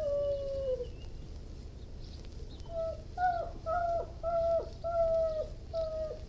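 Irish Wolfhound whining: one drawn-out, slightly falling whine at the start, then after a pause of about two seconds a run of about six short, high whines, several dropping off in pitch at their ends.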